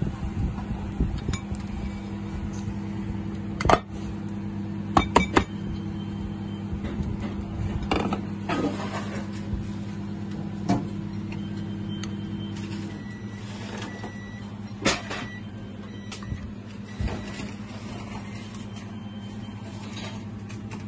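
Restaurant kitchen sounds: a steady low hum of kitchen equipment under scattered sharp knocks and clinks of a spoon, plastic bowl and plate being handled, the loudest a few seconds in and again about three-quarters of the way through.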